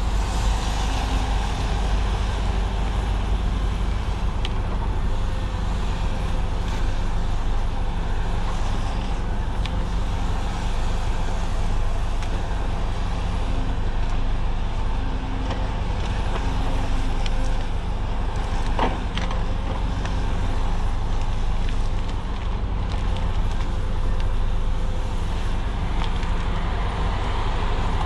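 Cat 568 shovel logger's heavy diesel engine running steadily, with a few sharp knocks on top, the clearest about two-thirds of the way through.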